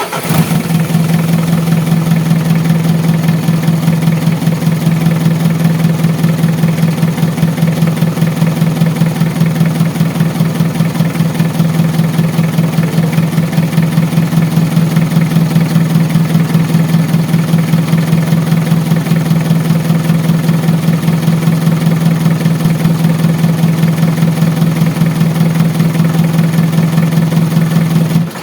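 Mitsubishi Adventure's 4D56 diesel engine idling steadily with an even, rapid beat, just after catching on the first crank now that the air leak at its fuel pump is fixed. The sound cuts off near the end.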